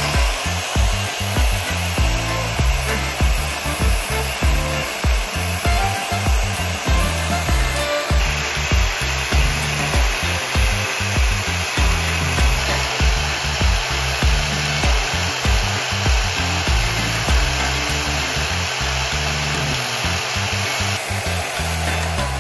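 Angle grinder running with a knife edge being ground on its spinning abrasive disc, a steady grinding hiss. Background music with a steady bass beat plays alongside.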